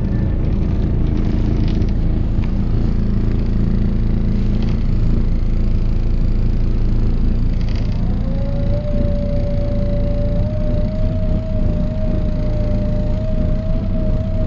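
Mercedes-Benz O408 bus running, with the low rumble of its OM447hLA diesel and ZF 5 HP 500 automatic gearbox. About eight seconds in, a steady whine sets in, creeping slightly up in pitch and holding: the gearbox's weird NBS sound.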